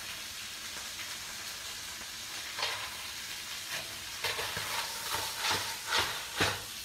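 Clams sizzling in hot oil in a frying pan. From about two and a half seconds in, a metal ladle stirs and tosses them, clattering against the pan about twice a second.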